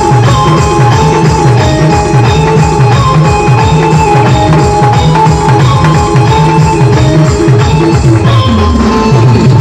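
Loud live band music: a dense, driving drum beat under a held melody line that steps between notes.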